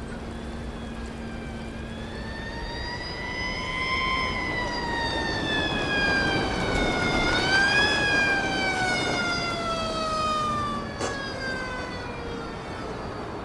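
A dog howling: one long wailing howl that rises and then falls, and a second that starts higher and slides slowly down in pitch until it fades near the end.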